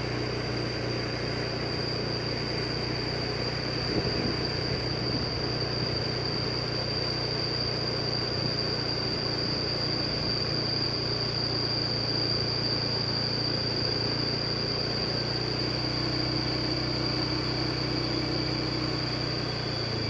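Vehicle engine running steadily while driving on fresh, smooth asphalt, with tyre and road noise and a steady high-pitched whine over it.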